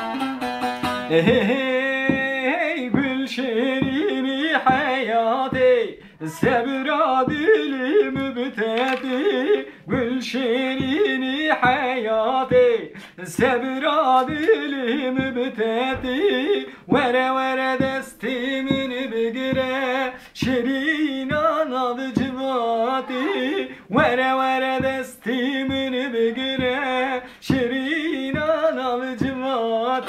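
Bağlama (long-necked saz) strummed in a quick regular rhythm, accompanying a voice singing a wavering Kurdish folk melody, with short breaks between phrases.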